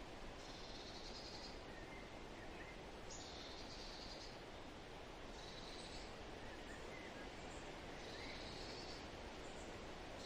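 A songbird repeating a short, high trilled phrase about every two and a half seconds, four times, with a few faint softer chirps between. Steady background hiss underneath.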